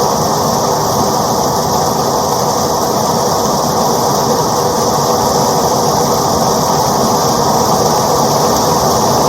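Rain falling steadily, an even, unbroken wash of noise.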